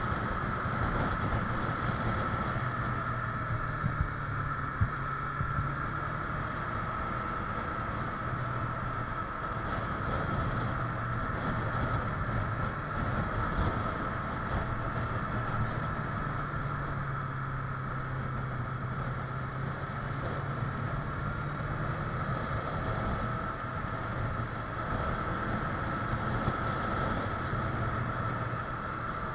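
Yamaha YZF-R25's 249 cc parallel-twin engine running steadily under way in slow city traffic, its note changing little, with road and wind noise.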